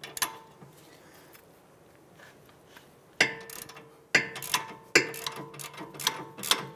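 Ratchet wrench with an 18 mm socket loosening the nut on a sway bar end link. There is one sharp click just after the start, then a pause, then from about three seconds in a run of sharp metallic clicks, each ringing briefly.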